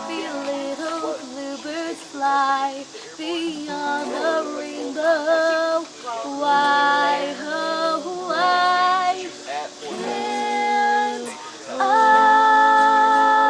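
A song with a high female voice singing over guitar, ending on a long held note near the end.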